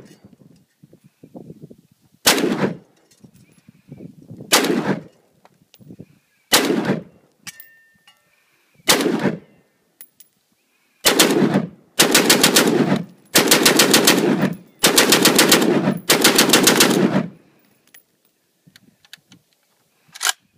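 Semi-automatic 9mm pistol being bump-fired. First come single shots about two seconds apart, then, from about halfway through, five rapid strings of shots, each about a second long, with short gaps between them. One more shot comes near the end.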